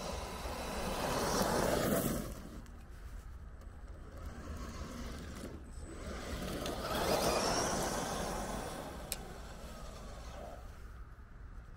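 Absima Sherpa RC crawler truck driving over gravel: electric motor running and tyres crunching on the stones. It gets louder as it passes close, about two seconds in and again around seven seconds, then fades as it drives off. It is running on a 10-cell NiCd pack at about 12 V.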